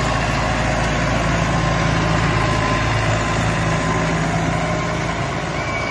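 Tractor engine idling steadily, with an even low hum.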